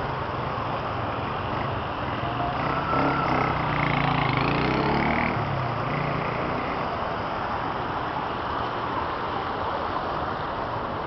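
A motor vehicle drives past on the flooded road, its engine loudest from about three to five seconds in, over a steady rushing noise of water and traffic.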